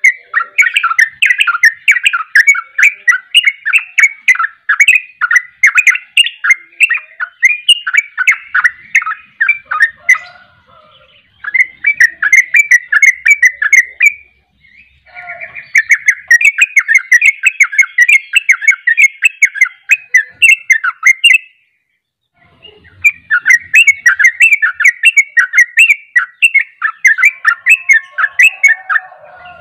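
Yellow-vented bulbul singing long, fast runs of bubbling notes, broken by three short pauses.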